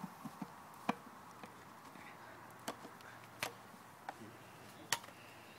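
A few sharp, irregular clicks and knocks, the clearest four spread over several seconds.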